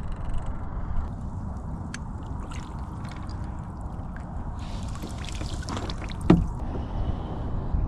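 Water trickling and splashing lightly around a kayak over a steady low rumble, with a few small ticks and one louder knock about six seconds in.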